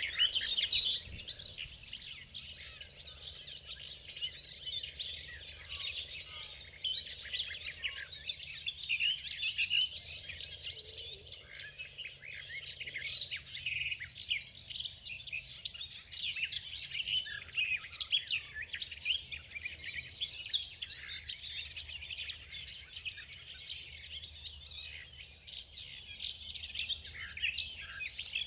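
Garden warbler singing: a rapid, continuous warbling song that runs on without a break.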